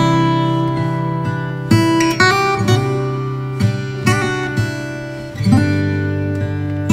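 Background music: acoustic guitar strumming chords, a new strum about every second or two.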